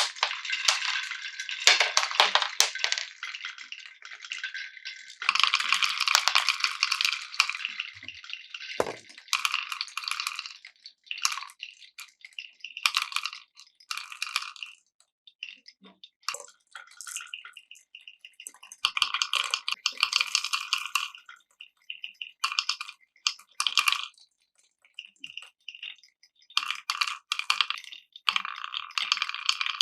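Glass marbles rolling and clattering through wooden Cuboro marble-run blocks, in stretches of a second or two with short pauses between, dotted with sharp clicks.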